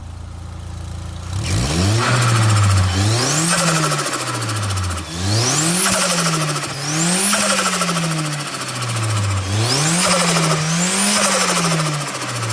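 Turbocharged car engine revved repeatedly in short blips from about a second and a half in, each rev rising and falling in pitch. A high turbo whistle climbs on several of the revs, and the turbo flutters as the throttle closes.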